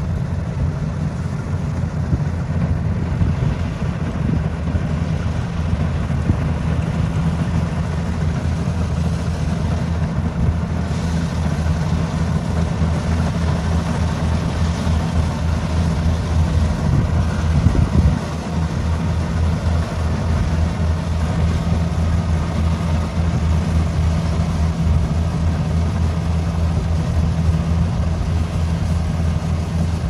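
Kubota DC-70X combine harvester's diesel engine running steadily under load as the machine cuts and threshes rice, a continuous low drone with a brief wobble and dip a little past halfway.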